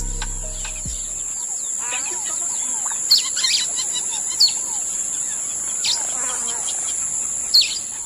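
Birds chirping with short falling calls over a steady high-pitched whine, as the bass of the preceding track fades out about a second in.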